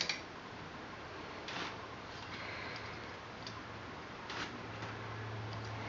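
Ratchet wrench clicking on the oil bypass cap bolt as it is torqued down: a quick run of clicks at the start, then a few single clicks spaced a second or two apart. A faint low hum sets in about a second and a half in.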